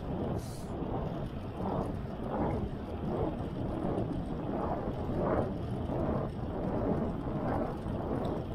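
Wind buffeting the microphone of a bicycle-mounted camera while riding, a low rumbling noise that swells and falls in gusts.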